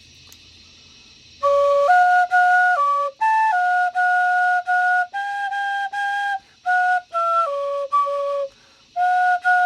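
A flute-like wind instrument playing a slow melody of separate, clearly tongued single notes, starting about a second and a half in after a faint low hum.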